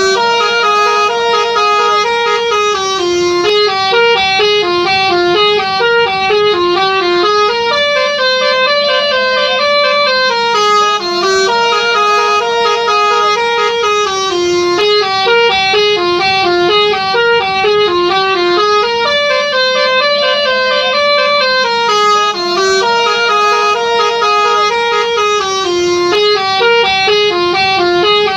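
Telolet musical bus horn playing a melody of quick stepped notes, the same phrase repeating over and over.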